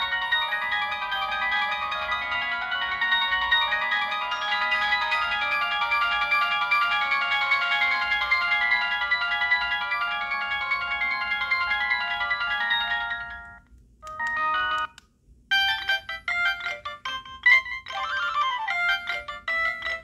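Samsung SGH-D600 mobile phone ringtones playing: one ringtone melody runs steadily and fades out about two-thirds of the way through. After a short gap a different, busier ringtone begins, with sliding notes.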